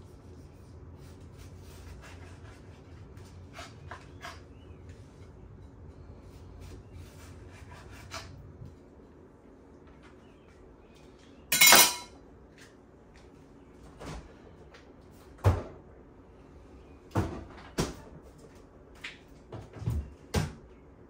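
A knife slicing tomatoes on a wooden cutting board, with faint taps. About halfway through comes a loud clatter, then a string of separate knocks and clunks as cupboard doors are opened and shut and dishes are handled.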